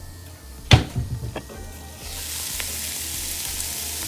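A sharp knock just under a second in, with a little clatter after it, then ground meat and green peppers sizzling in a frying pan from about two seconds in, a steady hiss.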